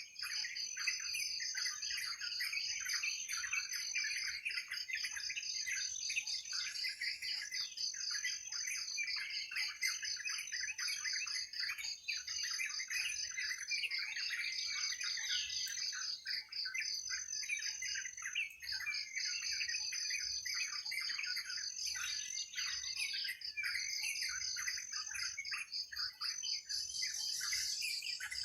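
A dense forest chorus of many birds chirping and calling over one another. Behind it runs a continuous high, fast, even trill.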